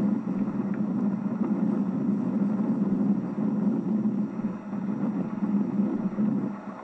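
A vehicle driving, heard as a steady low rumble of engine and road noise that eases slightly near the end.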